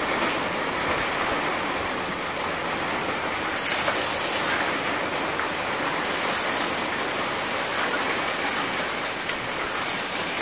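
Chicken sausage sizzling as it fries in a pan, a steady hiss that turns brighter about a third of the way in while it is stirred with a fork.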